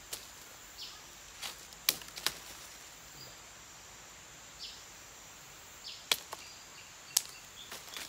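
A machete cutting into a thin woody kepompon stem: four sharp cracks, two about two seconds in and two more around six to seven seconds, with a few fainter knocks between.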